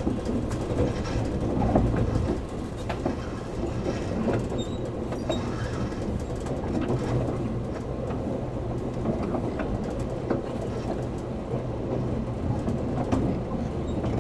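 Inside a JR 113 series (7700 subseries) electric multiple unit running on the Kusatsu Line: a steady rumble of the car in motion with a low hum, and scattered clicks of the wheels over the rails.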